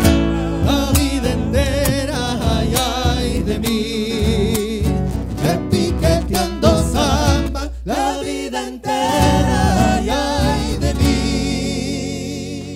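Argentine folk vocal group singing in harmony with vibrato over strummed acoustic guitars. Near the end they hold a long final chord that fades away.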